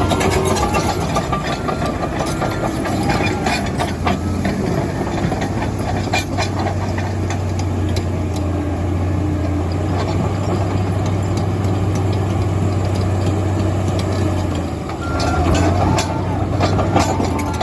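Komatsu D85EX crawler dozer's diesel engine running steadily under work, with repeated metallic clicks and clanks over it. The engine note drops briefly about fifteen seconds in, then picks up again.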